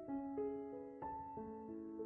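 Background piano music: a slow melody of single struck notes that hold and fade, a new note about every third of a second.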